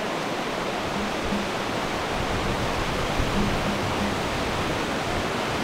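Steady rushing of flowing stream water, an even, unbroken noise.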